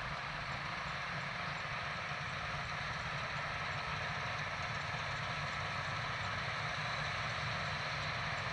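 1999 Claas Mega 204 combine harvester running steadily while threshing turnip rape: an even drone of engine and threshing machinery.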